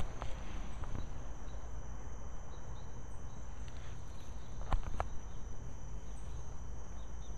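Outdoor ambience: a steady high-pitched insect drone over a low rumble, with a couple of sharp clicks about four and a half to five seconds in.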